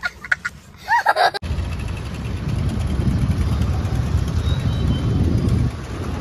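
A young child's brief laughing squeals, then an abrupt cut to a steady low rumble of street traffic.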